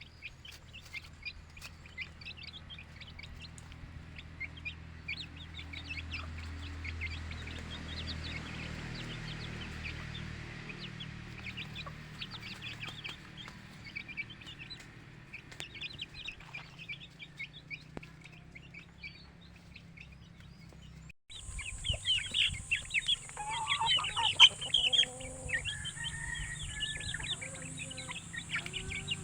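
A flock of young Aseel-cross chickens peeping, a dense scatter of short high calls. About two-thirds of the way through, the sound cuts to louder peeping and lower clucking calls over a steady high hiss.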